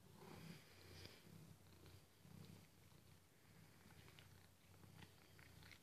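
Faint purring of a house cat, a soft low rumble that rises and falls in slow pulses, with a few faint clicks in the second half.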